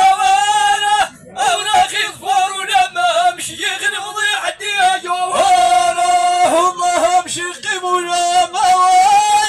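A man chanting Amazigh verse into a microphone in long, held, slightly wavering notes, with short breaks between phrases.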